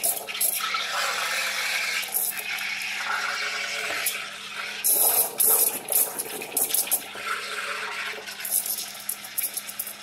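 Steam wand of a Saeco-built Starbucks Barista espresso machine hissing and gurgling as it froths milk in a stainless steel pitcher, with louder spurts about five seconds in.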